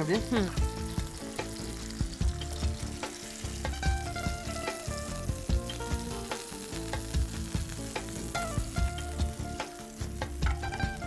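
Hot oil sizzling in a frying pan, with a wooden spatula scraping and clinking against the pan as a piece of fried chicken is lifted out onto a plate.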